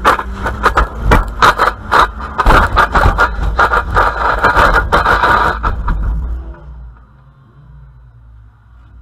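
Inside the cabin of a Ford Mondeo banger race car: engine running under a rapid, loud clatter of knocks and rattles as it drives. About six and a half seconds in, the clatter stops and the sound falls to a low engine rumble as the car comes to a stop.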